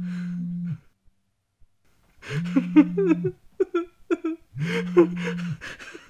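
A phone vibrating in a repeating pattern: a low, steady buzz about a second long, coming at the start, about two seconds in and again about four and a half seconds in. Over the later buzzes a man lets out stifled, choking vocal outbursts behind his hand.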